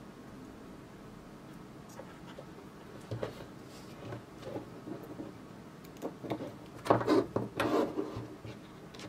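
Hands handling small RC parts on a cutting mat: servo leads and plastic connectors rubbing, clicking and being set down. The handling is sparse at first and busiest near the end.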